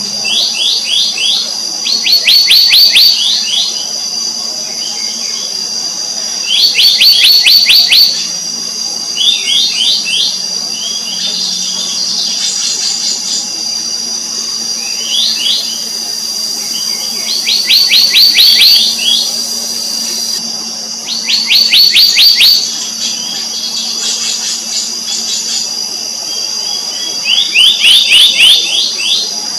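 Black-naped monarch calling: bursts of rapid, high ringing notes, each about a second long, repeated every few seconds. A steady high insect drone runs underneath.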